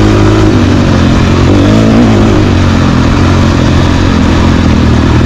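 Dual-sport motorcycle engine running steadily under way, with a loud, even rushing noise over it.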